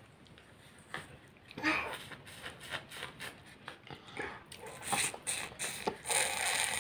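A small child eating ice cream: wet slurping and snuffling mouth noises, with scattered light clicks of a spoon in a plastic cup.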